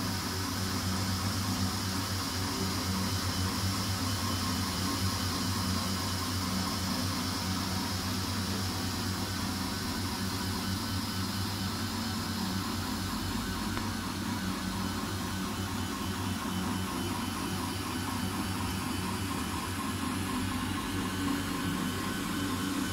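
MINGDA MD-4C FDM 3D printer running a print: a steady whir of its cooling fan and stepper motors as the print head travels back and forth.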